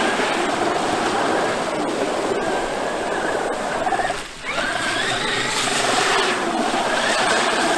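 Traxxas X-Maxx brushless electric RC monster truck running, its motor whining steadily with tyre and drivetrain noise. A little past the middle it dips briefly as the throttle is let off, then the whine climbs in pitch as it accelerates again.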